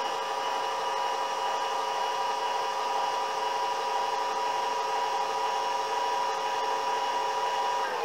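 Celestron Evolution 8 telescope mount's drive motor slewing at its top speed (rate 9), a steady, high gear whine with several tones, winding down in pitch as it stops at the very end. The owner worries that this mount's noise is louder than normal.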